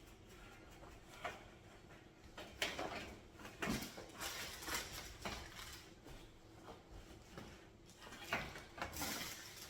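Faint handling noises: scattered light knocks and clicks, with a louder rustle near the end.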